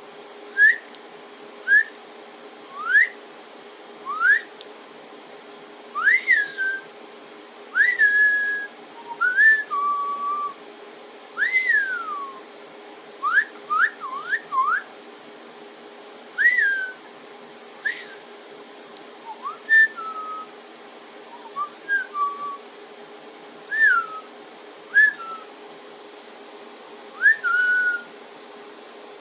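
A person whistling to a pet budgie in short clean notes, about one a second: quick upward sweeps and rise-then-fall whistles, some ending on a held tone. A faint steady hum lies underneath.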